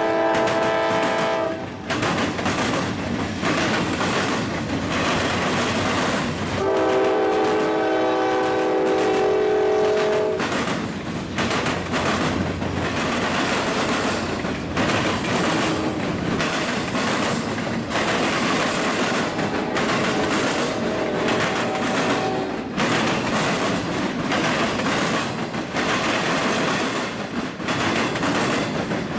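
Double-stack intermodal container train rolling past, its wheels clicking steadily over the rail joints. A locomotive horn blows over it: briefly right at the start, a long blast about a quarter of the way in, and a fainter blast about two-thirds of the way through.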